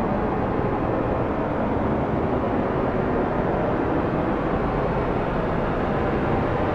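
Strong snowstorm wind blowing steadily, a dense, even rushing noise weighted toward the low end, with no distinct gusts or breaks.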